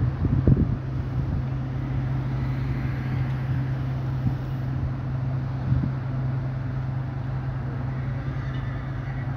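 A boat's diesel engine droning steadily at one constant pitch, with a few brief gusts of wind on the microphone.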